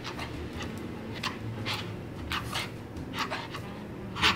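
A Cavalier King Charles Spaniel making a string of short, breathy huffs and half-barks, working his way up to barking on the 'speak' command; the loudest comes near the end.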